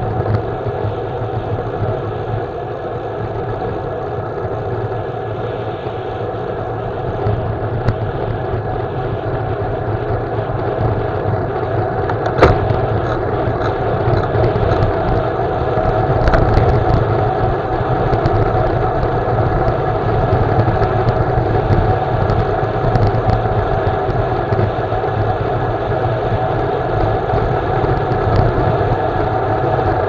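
Steady wind rush over the camera microphone, with tyre noise on asphalt, while riding a road bicycle; a sharp click about twelve seconds in.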